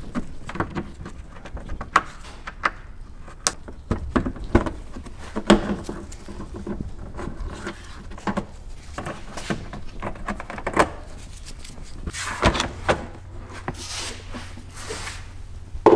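Plastic push-pin fasteners being prised out of a plastic air-intake duct, making a series of sharp plastic clicks and knocks. Near the end the duct rubs and scrapes as it is pulled free.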